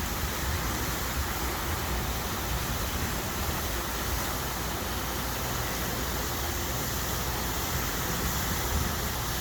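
Water fountain splashing: a steady, even rush of falling water.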